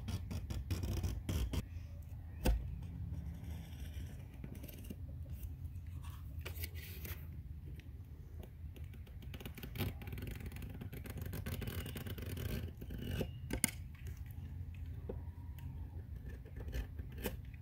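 A sharp knife blade slicing and scraping through a pool liner inside the skimmer opening, then the cut-out piece of liner being pulled free, with scattered clicks and a couple of sharper ones.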